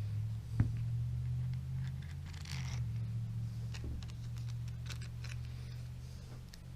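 Small hand-work sounds from reassembling a brush cutter carburetor: scattered light clicks and taps, one sharper click about half a second in, and a brief scrape a couple of seconds in, over a steady low hum.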